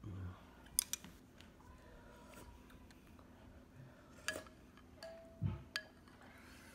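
A metal spoon stirring and scooping thick rice porridge in a ceramic bowl, with a few sharp clinks of spoon against bowl: two about a second in, one near the middle and one near the end.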